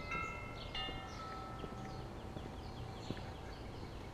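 Faint outdoor ambience of birds chirping, with a few clear ringing tones that come in sharply near the start and again about a second in, and linger for a second or two.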